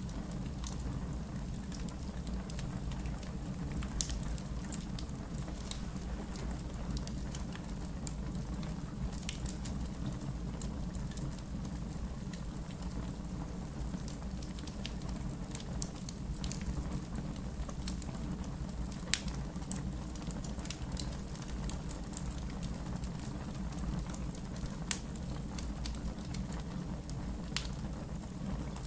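Wood fire burning in a fireplace: a steady low rumble of flames with scattered sharp crackles and pops, a few louder snaps about 4, 19 and 25 seconds in.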